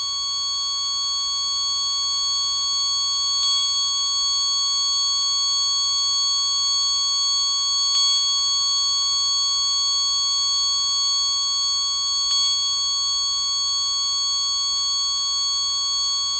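Hospital patient monitor sounding its continuous flatline alarm: one steady, unbroken high tone that never changes, the signal that no heartbeat is detected.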